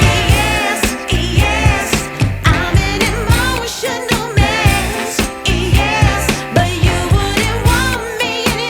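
Background song: a sung vocal melody over a steady beat.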